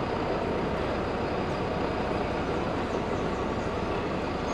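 Off-road tour truck (the custom 'Monster Bus') running and driving over a bridge: a steady rumble of engine and rattling body and road noise.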